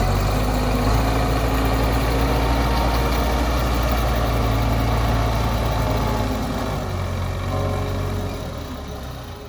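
Heavy construction vehicle's engine running steadily with a low hum, fading away over the last three seconds.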